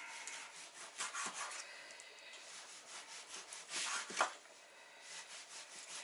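Chef's knife slicing raw pork into strips, the blade drawing through the meat and scraping on a plastic cutting board. There are a few separate strokes, the loudest about four seconds in.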